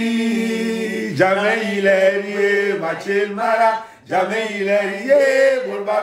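A man singing unaccompanied, a slow melody in long held notes. One note is held for about a second at the start, then come shorter phrases with a brief breath about four seconds in.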